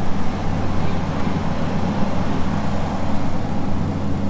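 Heavy equipment engine running steadily, a constant low hum under a broad mechanical noise.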